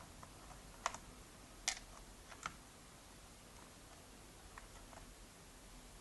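Small sharp clicks and taps, five or so in the first two and a half seconds and a few fainter ones later, from a netbook's plastic memory cover and its cross-head screw being handled and refastened with a screwdriver.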